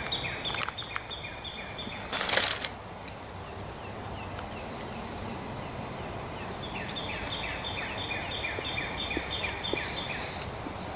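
Outdoor background with a short loud rustle about two seconds in, and a rapid run of high, evenly repeated chirps in the later part.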